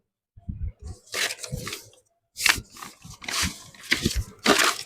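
Blind bag packaging being handled and torn open: irregular crinkling and tearing rustles with light knocks, in a few short bursts.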